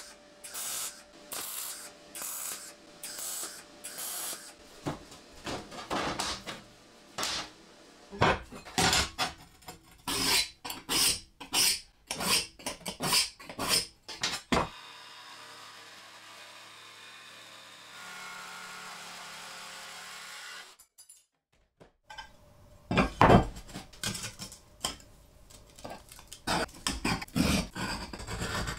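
A MIG welder lays short tack welds on a steel frame, crackling in short bursts about twice a second. Irregular scraping strokes of tools on steel follow. Near the end, a steel scriber scratches lines onto a steel plate along a ruler.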